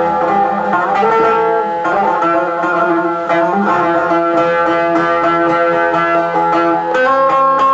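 A plucked string instrument plays an instrumental passage of an ilahi melody, with a steady run of picked notes and no singing.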